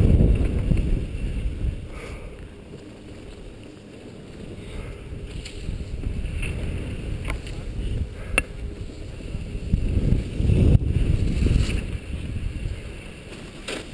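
Wind buffeting a helmet-mounted camera's microphone while skiing downhill, a low uneven rumble that eases off for a few seconds and then builds again, over the hiss of skis sliding on snow. A couple of sharp clicks come in the second half.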